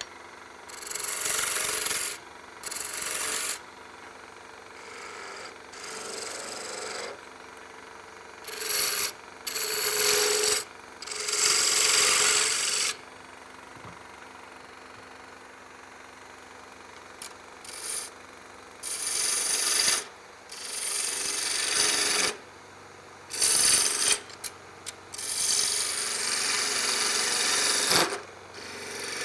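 A turning tool cuts into a walnut blank spinning on a wood lathe, in a string of passes each one to three seconds long, with the lathe's steady hum between them.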